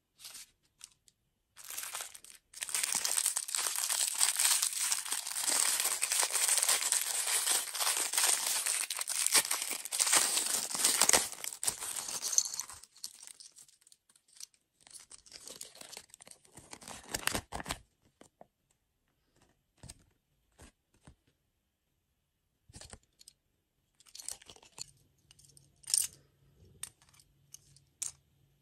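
A thin plastic wrapper is crinkled and torn open, a dense rustling that runs for about ten seconds. It then gives way to scattered light clicks of small plastic toy pieces being handled.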